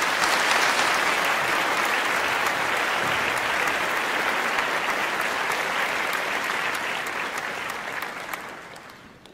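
An audience applauding steadily, the clapping dying away over the last couple of seconds.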